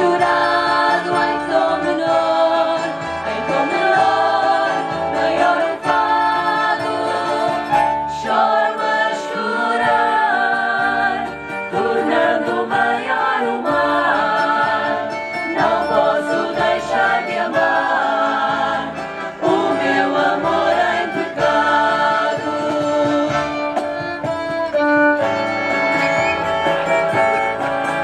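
Live folk group performing a song: several women's voices singing together into microphones, accompanied by violin and electric keyboard over a steady, repeating bass line.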